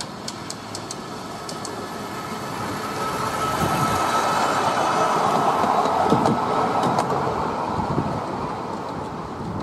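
A Planet-class battery-electric miniature locomotive and its open carriage roll past on the miniature railway track, wheels running on the rails. The sound grows as it comes near, is loudest about five seconds in, then fades as it moves away.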